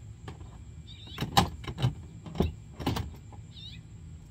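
A quick run of about eight sharp clicks and knocks, loudest about a second and a half in, from hand tools working on a Power Wheels ride-on toy car being taken apart. Small birds chirp faintly in the background.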